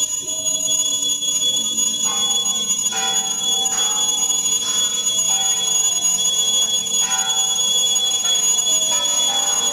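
Thai temple bells struck one after another, about once a second from roughly two seconds in, each ringing on and overlapping the next, over a steady high-pitched tone.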